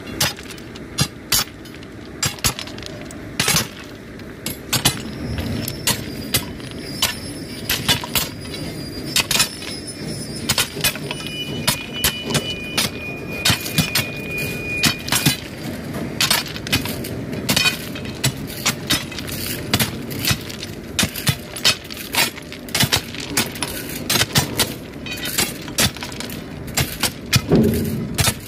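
Manual ballast packing on a railway track: steel bars jabbed into the crushed-stone ballast under the sleepers, giving sharp, irregular clinks and crunches of stone about one or two a second. A few strikes leave a thin metallic ring.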